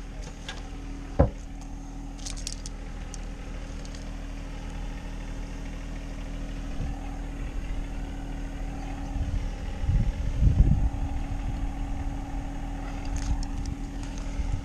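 Steady mechanical hum, like a vehicle engine running nearby, with one sharp knock about a second in, a few faint clicks, and a run of low bumps around ten seconds in.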